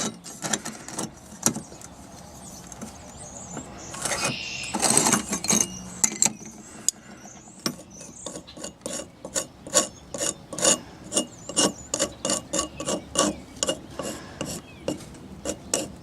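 Soapstone scraping over flat steel stock while cut lines are marked out: a longer scrape about four seconds in, then a steady run of short, quick strokes about three a second through the second half.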